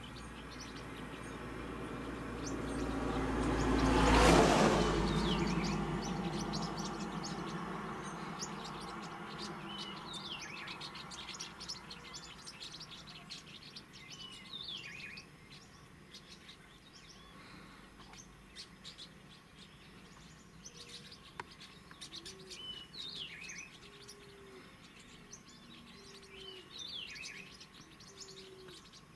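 Green-rumped parrotlets chirping again and again with short, high calls, thickest from about nine seconds in. In the first few seconds a loud rush of noise builds to a peak about four seconds in and then fades away.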